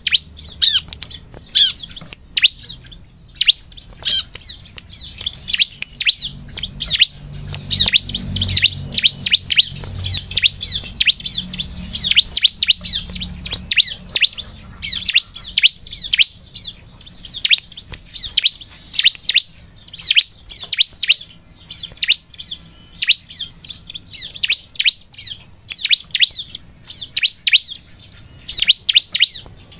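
Bar-winged prinia (ciblek) singing: a rapid, continuous run of high, sweeping chirps.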